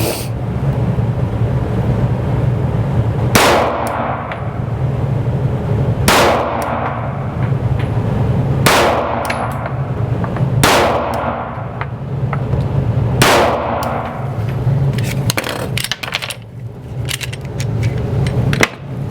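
Five 9mm shots from a Glock 43 subcompact pistol, fired about two to three seconds apart, each ringing out in the echo of an indoor range, over a steady low hum. A few lighter clicks follow near the end.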